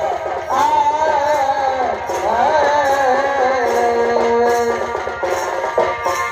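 Indian folk music: a bending melody line, sung or played, held over a steady beat of hand drums.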